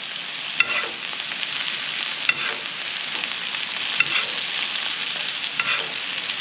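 Butter and beef fat sizzling steadily in a cast iron skillet as a steak is basted, with a metal spoon clinking against the pan four times, about every second and a half.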